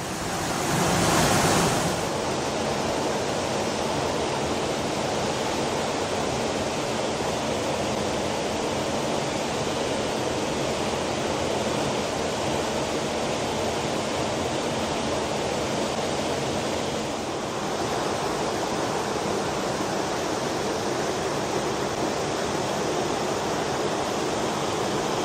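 A 7.6-metre waterfall heard at close range, its full force of water pouring down in a steady, unbroken rush. The first two seconds are louder.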